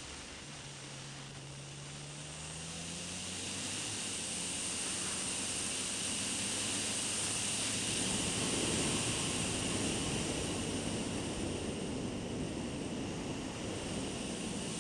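Yamaha MT-09's three-cylinder engine running under a heavy wind rush heard from a camera mounted on the moving motorcycle. It grows louder over the first several seconds as the bike gathers speed, then holds steady.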